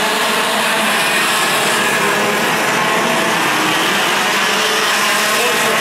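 Several 125cc two-stroke TaG racing kart engines buzzing at high revs as the karts race past, their pitches overlapping and wavering up and down.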